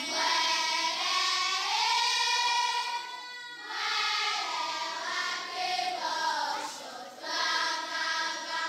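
A group of voices singing a melody in held notes of about a second each, with a short break about three and a half seconds in.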